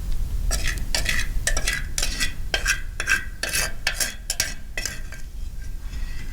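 A metal cooking utensil scraping and knocking against a pan in quick repeated strokes, about three a second, with a light sizzle; the strokes stop about five seconds in.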